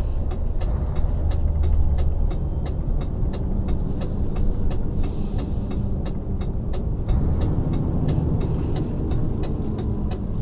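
Inside the cab of a V8 Mercedes-Benz truck, the engine runs with a steady low rumble while the turn indicator ticks about three times a second, as the truck turns off to refuel.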